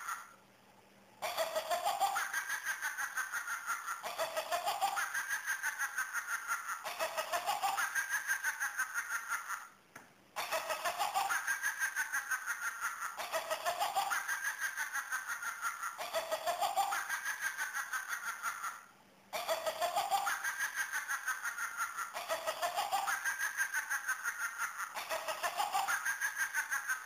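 Electronic witch toy playing a recorded cackling laugh on a loop. Each short cackle rises and then falls in pitch, about one every second and a half, and the loop restarts after a brief break about every nine seconds.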